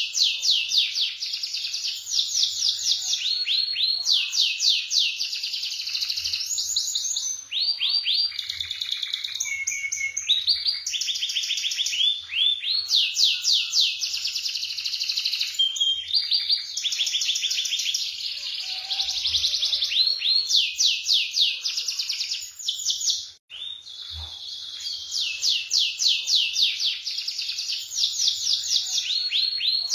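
Domestic canary singing a long, continuous song of rapid rolling trills, switching to a new trill every second or two.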